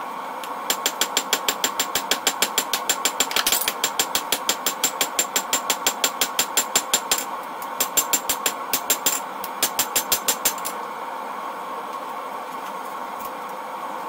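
Hand hammer striking red-hot leaf-spring steel on an anvil, a fast even run of sharp ringing blows, about four a second because the footage is sped up four times, with two short pauses. The blows stop a few seconds before the end, leaving only a steady hiss.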